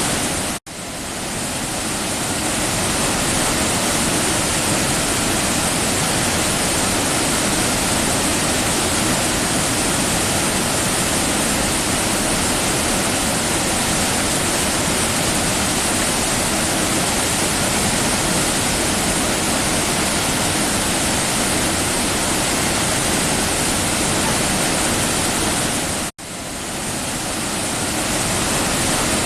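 Waterfall: a loud, steady rush of falling water. The sound cuts out for an instant and swells back twice, about half a second in and near the end.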